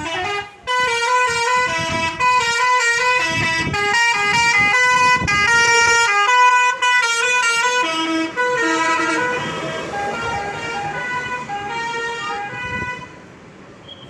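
An Indonesian bus's multi-tone telolet air horn playing a loud, quick tune of changing notes that hops between pitches several times a second. It drops to a much quieter level about 13 seconds in.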